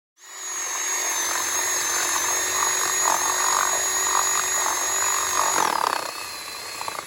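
Power drill running at high speed with a steady high whine; about five and a half seconds in, its pitch falls as it slows, and it stops just at the end.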